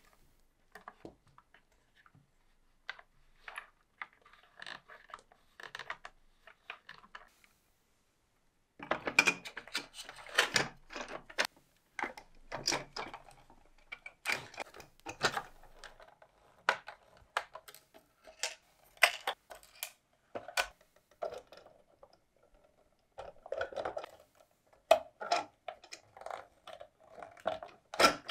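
Clear plastic parts of a model boxer-engine kit being handled and fitted together: scattered clicks, taps and light clatter of hard plastic pieces. The clatter is sparse and soft at first, stops for a moment after about seven seconds, then turns busier and louder.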